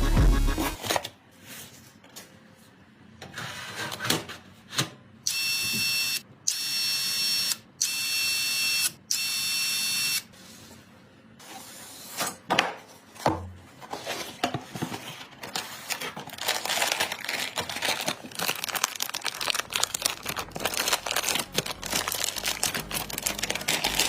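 Handheld electric screwdriver running in four short bursts of about a second each, with a steady high whine as it drives screws into the PC parts. Scattered clicks and knocks come before, and rapid clicking of parts being handled and fitted follows near the end.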